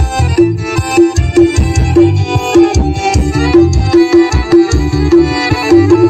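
A song with a heavy pounding bass beat, about two beats a second, played loud through a car trunk sound system built with JBL subwoofers, midrange drivers, horn drivers and tweeters.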